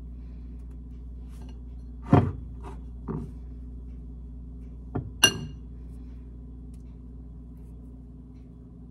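Dough being pinched and dropped into a crock pot, with two soft knocks about two and three seconds in and a sharp ringing clink about five seconds in, over a steady low hum.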